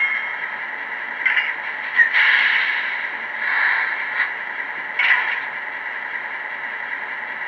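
Model MP15 switcher locomotive's MRC sound decoder playing diesel engine sound through its small onboard speaker as the locomotive creeps along. Several short noisy swells come over the steady engine sound.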